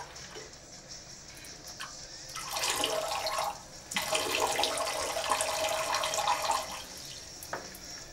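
A man urinating into a toilet bowl: a short splashing stream about two and a half seconds in, a brief pause, then a longer stream lasting nearly three seconds.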